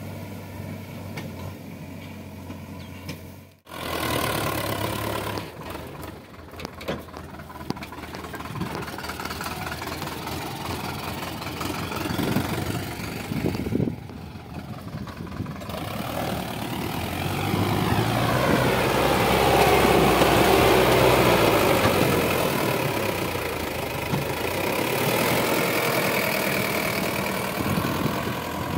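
Sonalika tractor's diesel engine running while hauling a loaded trolley. The engine note is steady at first, breaks off abruptly twice, and grows louder and rougher about two-thirds of the way through.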